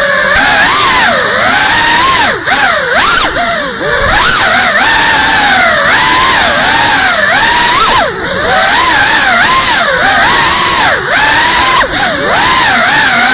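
GEPRC Cinelog35 cinewhoop's brushless motors and propellers whining, the pitch swooping up and down constantly as the throttle changes, with a few brief dips where the throttle is chopped. It is heard close up through the onboard camera's microphone.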